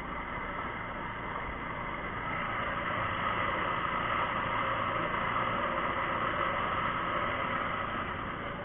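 Small boat engine running steadily while underway, with water rushing and splashing along the hull; it grows a little louder in the middle.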